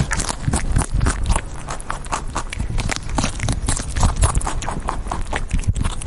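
Rabbit chewing and tearing grass close to the microphone: a quick, irregular run of crunchy clicks, several a second.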